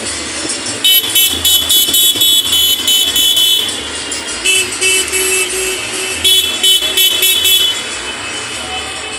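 Vehicle horns honking in quick, high-pitched toots, about four a second, in two runs about a second and a half apart, with a steadier horn note between them, over street traffic noise: celebratory honking.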